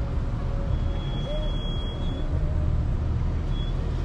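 Steady low rumble of a car's engine and tyres heard from inside the cabin while driving. A faint thin high tone sounds for about a second and a half, starting about a second in.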